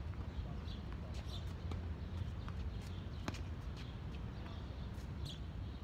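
Tennis rally on an outdoor hard court: scattered sharp knocks of racket strikes, ball bounces and footsteps, the loudest about three seconds in, over a steady low rumble.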